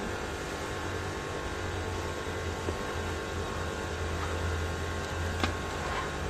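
Steady low background hum, with two sharp clicks, one about two and a half seconds in and a louder one about five and a half seconds in, as spark plug wire boots are pulled out of a Honda B16A's valve cover.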